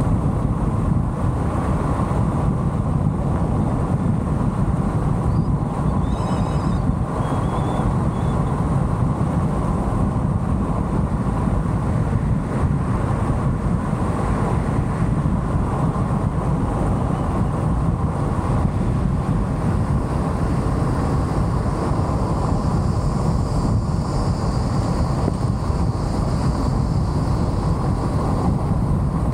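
A car driving at a steady speed: constant road and wind noise that does not change.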